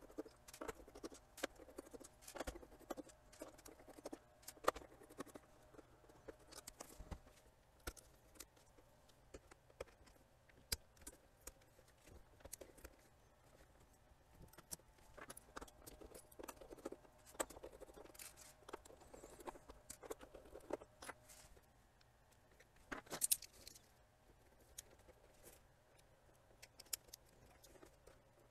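Faint, irregular clicks, taps and scrapes of a Sony DVP-FX980 portable DVD player's plastic case being handled and pried at with a small pick and hand tools, with a short, louder run of clicks about 23 seconds in.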